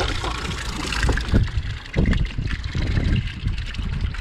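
Choppy waves slapping and gurgling against the hull of a small drifting boat, with wind rumbling on the microphone and a few knocks about a second and two seconds in.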